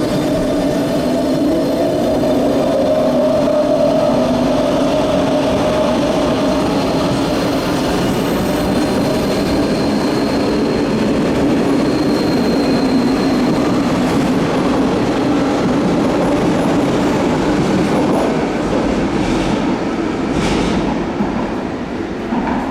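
Electric passenger train running with a steady hum and whine from its motors, wheels rumbling on the rails. A few short sharp sounds come near the end as it grows quieter.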